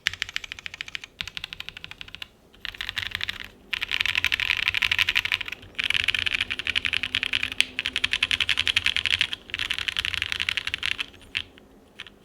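Fast typing on a Gok 7V custom mechanical keyboard with lubed linear switches (Original Aspiration housings with NovelKeys Cream stems) on a polycarbonate plate, with GMK keycaps: rapid runs of keystrokes broken by short pauses, thinning to a few last strokes near the end. The owner finds the board's sound still a little hollow despite its foam.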